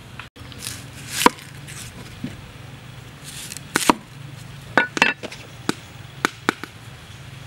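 A cleaver cutting a yellow onion on a wooden chopping board: a handful of sharp, irregularly spaced knocks as the blade strikes through onto the wood.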